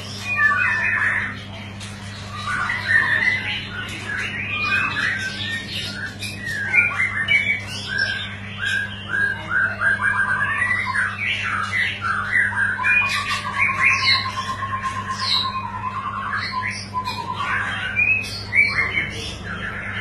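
White-rumped shama (murai batu Medan, long-tailed variety) singing vigorously: a long, varied run of whistles, slurred notes and rapid trills, including a drawn-out trill past the middle. A steady low hum runs underneath.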